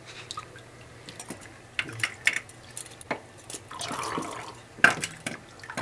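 Water splashing and dripping as a hand is wetted to slip off a stuck handcuff, with scattered small clicks and knocks. A short swell of running water comes about four seconds in, and a sharp knock just before the end.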